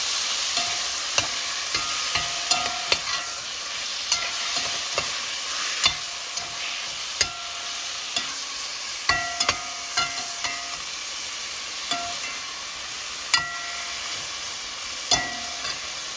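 Beef liver and onions sizzling in hot oil in a pan, with a steady hiss. A utensil stirring the food knocks against the pan at irregular moments, each tap ringing briefly, and the taps come in quick clusters about halfway through and near the end.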